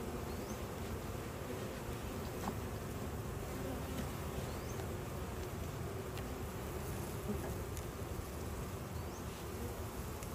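Steady buzzing of a honey bee colony in an open hive, thousands of bees on the frames being lifted and moved during an inspection.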